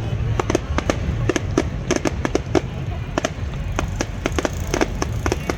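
Fireworks going off: a rapid, irregular string of sharp bangs and crackles over a steady low rumble.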